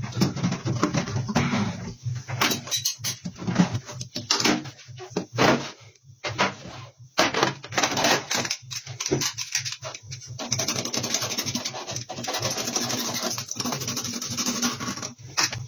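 Scraping, rubbing and light knocks of hand work on a car tyre during a section repair: irregular scratches for the first ten seconds or so, then a denser, steadier scratching while the rubber section patch is handled against the tyre. A low steady hum runs underneath.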